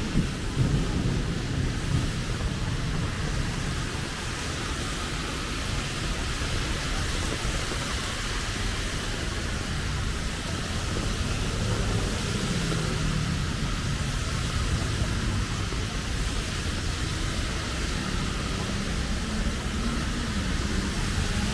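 Steady rain hiss over the low rumble of city road traffic, with engines of passing vehicles rising and falling in pitch around the middle and near the end.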